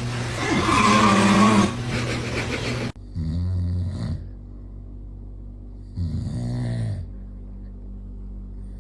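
A man snoring in slow, regular snores about three seconds apart, each about a second long. The snores follow a louder stretch of noisy sound that cuts off abruptly about three seconds in.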